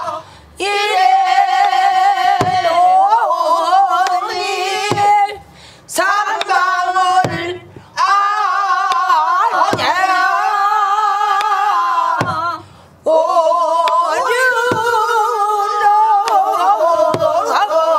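A woman singing pansori in long held notes that waver in pitch, broken by short breaths, with a few sharp strokes on a buk barrel drum keeping time.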